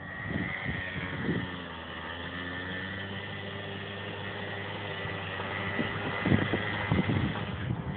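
The small 50cc engine of a drift trike running at a steady speed, a buzzing hum with a higher whine over it. Several irregular thumps or knocks come in over it near the end.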